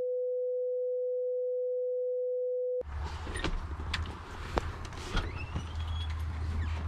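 A steady electronic beep: one pure mid-pitched tone held for nearly three seconds with all other sound cut out, then ending abruptly. After it comes a low steady hum with scattered clicks and faint chirps.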